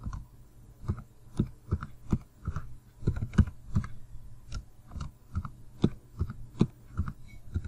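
Computer keyboard keys tapped one at a time at an uneven pace, each a short dull click, as a password is typed. A faint steady hum runs underneath.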